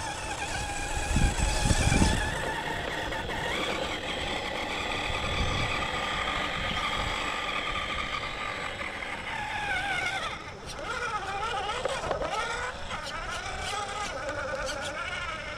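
Brushed Holmes Hobbies 550 13-turn electric motor and drivetrain of a Redcat Ascent RC crawler whining as it drives on a 3S battery. The pitch rises and falls with the throttle, and a few low thumps come a second or two in.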